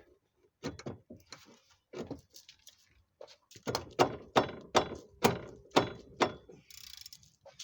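A half-inch ratchet and an 18 mm impact socket being handled and fitted, making sharp metallic clicks and clanks. The clicks come scattered at first, then in a run of about two a second near the middle.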